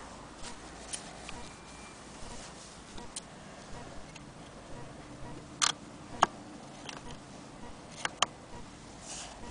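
Scattered sharp clicks and knocks from the metal parts of an 1890s Victorian sewing machine being handled at the needle and presser foot, with no steady stitching rhythm. The loudest clicks come in two close pairs, one a little past halfway and one near the end.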